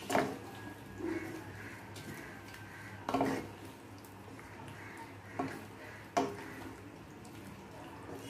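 Wooden spatula stirring a thick soybean and potato curry in a nonstick pan, with a few scattered scrapes and knocks against the pan.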